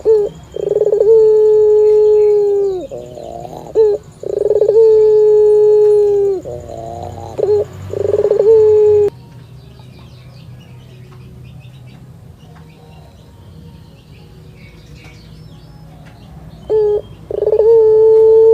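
Barbary dove (burung puter) cooing: three long, steady coos, each opening with a short rolling trill, then a quieter stretch and one more coo near the end.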